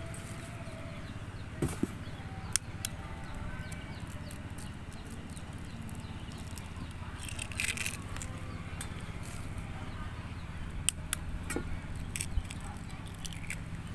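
Quail eggs being tapped and cracked open: a scattering of short, sharp clicks and small cracks at irregular intervals, over a low steady background rumble.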